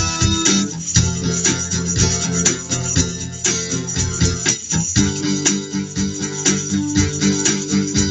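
Instrumental passage of a live song: acoustic guitar strumming steadily over electronic drum kit beats, with the jingles of a half-moon tambourine.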